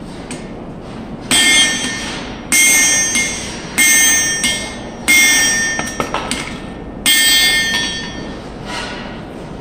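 Five sharp metal-on-metal clangs at uneven intervals, each ringing out with clear bell-like tones that fade over about a second, as struck steel does.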